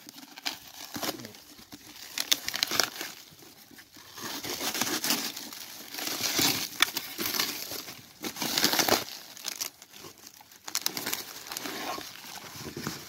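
Cardboard box and plastic wrapping being cut open with a knife and handled: irregular crinkling and rustling in bursts.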